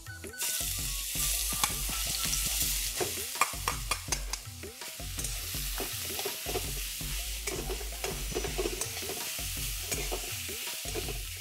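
Grated bottle gourd sizzling in hot ghee in a metal wok, starting just after the start as it is tipped in, while a metal spatula scrapes and clicks against the pan as it is stirred.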